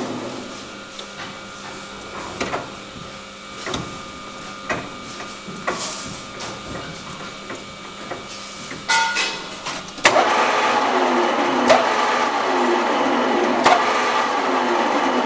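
1IS611V screw-cutting lathe: its running noise dies away, followed by a quieter stretch of separate knocks and clicks with a faint machine hum. About ten seconds in, the lathe starts up again suddenly and runs steadily with an even repeating rhythm and an occasional knock.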